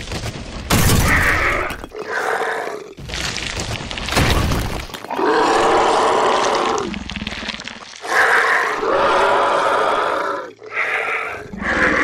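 Monster sound effects for a giant worm creature bursting from the ground: a string of loud growls and roars, each a second or two long, with crashing and breaking debris between them.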